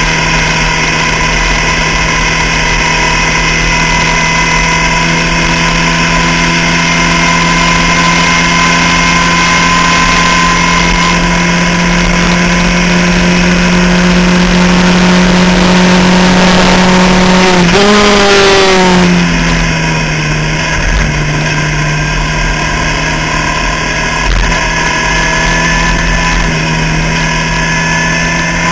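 Onboard sound of a Skip Barber open-wheel race car's engine at high revs, its pitch climbing slowly along a flat-out stretch, with wind noise throughout. A little past halfway the revs drop sharply in a few quick steps, as the car brakes and downshifts, then the engine pulls steadily and rises again.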